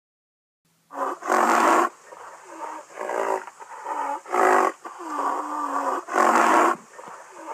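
Rhinoceros sound effect: a quick string of loud roaring bellows, about eight calls one after another, starting about a second in.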